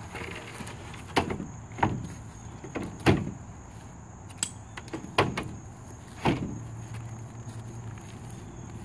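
Wooden ramp boards and their metal fittings knocking against a pickup truck's tailgate as they are set in place: about five separate clunks, the loudest about three seconds in.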